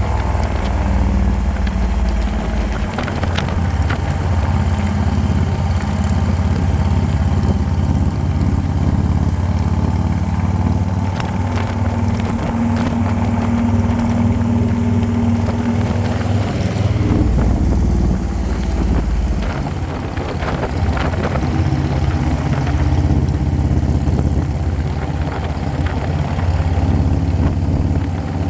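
Harley-Davidson V-twin motorcycle engine running at road speed, its note shifting a few times along the way.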